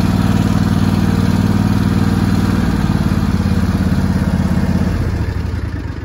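Gravely zero-turn riding mower's engine running steadily under the rider, then dropping in level and fading away about five seconds in.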